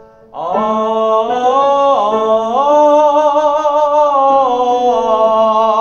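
A man singing a sustained vowel as a vocal warm-up exercise. The pitch steps up a few times, then comes back down, with vibrato near the end.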